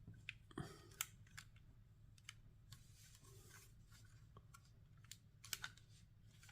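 Faint scattered clicks and light rubbing of plastic LEGO bricks being pushed and handled in a puzzle box, over a low steady hum.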